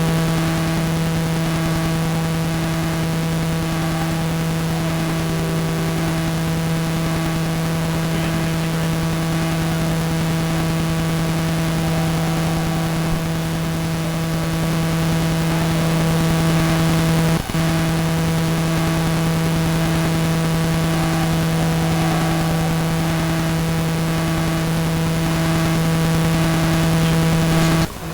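Steady electrical buzz on the recording, one fixed low pitch with a stack of overtones, breaking off briefly about 17 seconds in and again near the end.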